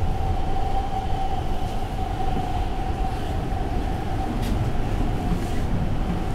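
Newag Impuls electric multiple unit running, heard inside the passenger car: a steady low rumble with a steady mid-pitched whine over it. A few faint clicks come about four and a half seconds in.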